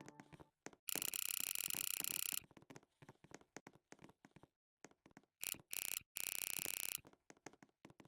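Electronic ringing tone, like an alarm or phone ringtone, sounding in bursts. A steady one of about a second and a half comes about a second in, then two short ones and another of nearly a second near the end.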